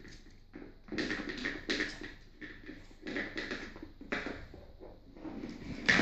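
Pug puppy playing with a toy on a wooden floor: claws and paws clicking and scuffing, and the toy knocking and dragging, in irregular bursts.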